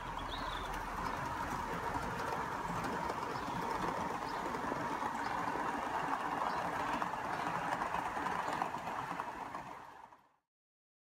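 Accucraft C38 live-steam Gauge 1 model locomotive running past with its coaches: a steady rapid chatter of exhaust and wheels on the rails, fading out near the end.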